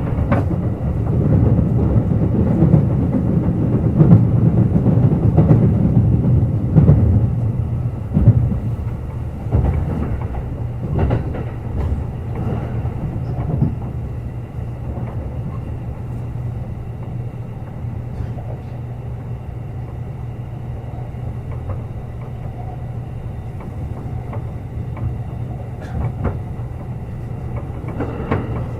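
Kintetsu Urban Liner Plus limited express electric train running along the line: a steady rumble with a low hum and scattered sharp clacks of wheels over rail joints. The rumble is louder in the first half and settles lower about halfway through.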